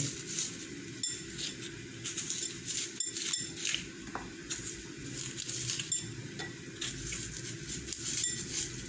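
Kitchen knife scraping and digging out the flesh of a raw turnip to hollow it, with scattered small scrapes and light clicks of the metal blade.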